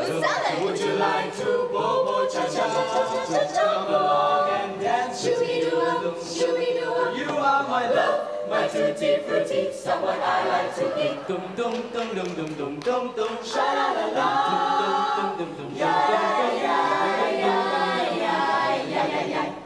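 Teenage a cappella choir singing in several-part harmony, with short percussive sounds among the voices.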